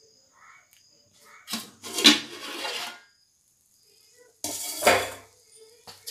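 Metal cookware clanking as the lid is taken off a metal biryani pot at the end of dum cooking: one round of clanking and scraping about a second and a half in, and a second sharp clatter of metal near the end.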